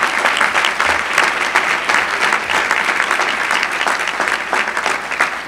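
Audience applauding: a dense, steady run of hand claps that starts to die down near the end.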